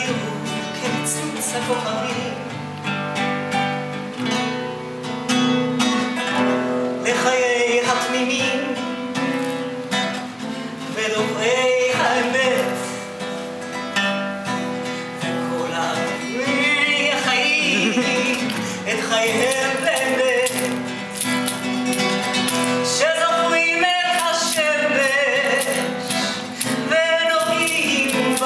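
A woman singing a song in Hebrew, accompanied by a plucked nylon-string classical guitar.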